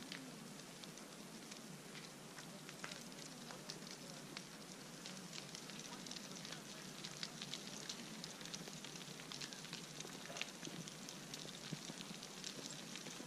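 Rockfall in the Grand Couloir: many small stones clattering down the gully as a faint, continuous crackle of clicks over a hiss, growing denser about halfway through.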